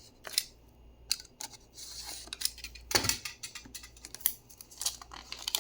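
Small cardboard box being opened by hand: a string of sharp clicks and taps, the loudest about three seconds in, with a short scraping rustle of cardboard about two seconds in.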